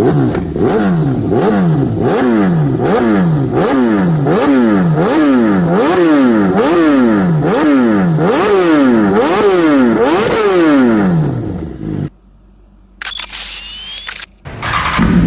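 BMW S1000RR inline-four sportbike engine revved repeatedly through an aftermarket exhaust, blipping up and falling back about once a second. After about eleven seconds the sound cuts out, with a few faint clicks, and a steady engine note starts near the end.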